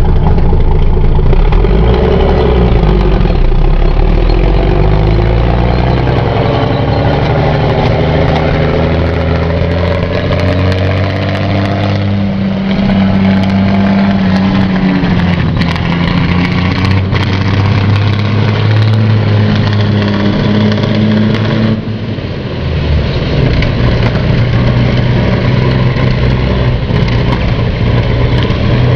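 Conqueror armoured recovery vehicle's Rolls-Royce Meteor V12 petrol engine running loud as the tank drives off fast, its pitch rising and falling with gear changes and throttle. The steel tracks clatter over the wet road, with a hiss of spray, and the sound dips briefly about two thirds of the way through.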